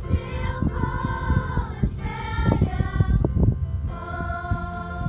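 Primary-school children's choir singing, with notes held for about a second at a time.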